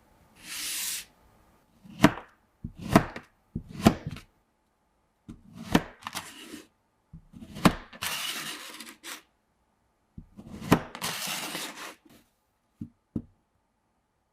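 Kinetic sand being cut and chopped: sharp knocks as the blade strikes down through the sand onto the surface beneath, with three stretches of high, grainy hiss as the sand crumbles and slides.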